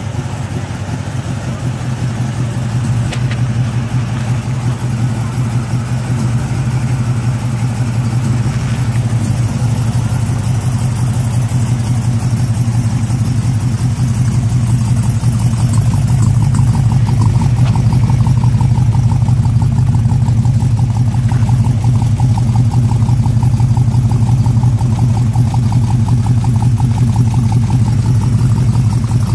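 A 1962 Chevrolet pickup's engine idling steadily, a low even running sound that grows a little louder over the first half.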